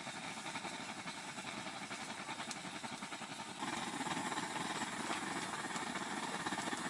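Liquid-fuel blowtorch heating an ice-fishing tent, its flame running with a steady rushing noise that becomes louder about three and a half seconds in.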